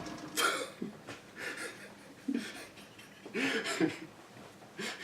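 A person's short, breathy laughs and gasps, about five of them at uneven intervals.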